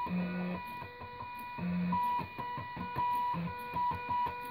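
Small stepper motors of two salvaged DVD drives whining as they drive a homemade CNC pen plotter: short runs of steady tones at a few fixed pitches, starting and stopping as the axes move, with small clicks in between.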